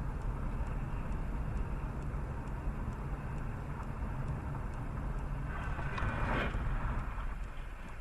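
A car driving, heard from inside the cabin through a dashcam: steady low road and engine rumble, with a louder rushing swell about six seconds in that rises and fades within a second or so.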